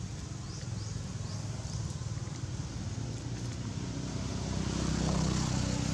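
Low engine rumble of a motor vehicle in the background, swelling to its loudest about five seconds in, with a few short high chirps in the first couple of seconds.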